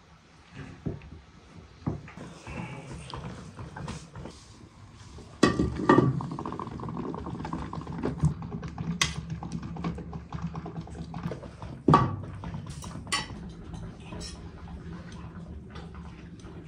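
Clicks and scrapes of a hand jar-sealing key turning metal lids onto glass jars. About five seconds in this gives way to a steady low hum with clinks of utensils and a plate over a pot of boiled corn cobs, one clink louder than the rest.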